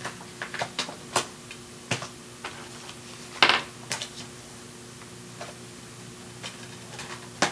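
Scattered sharp clicks and taps of unboxed items and packaging being handled and put away, loudest about three and a half seconds in, over a steady low electrical hum.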